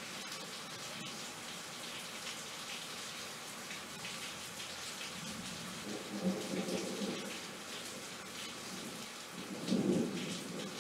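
Steady rain hissing down, with two louder low rumbles about six and ten seconds in.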